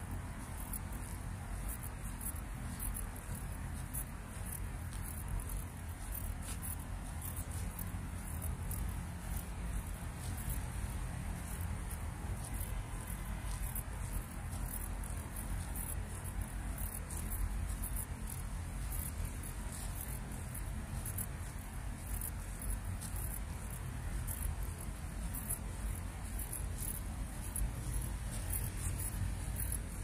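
Insects trilling in fast, high-pitched pulses without a break, over a steady low rumble.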